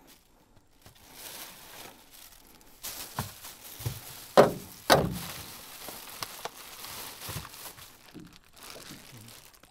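Plastic bags crinkling and rustling as they are handled. There are two loud knocks about four and a half and five seconds in, followed by a few lighter clicks.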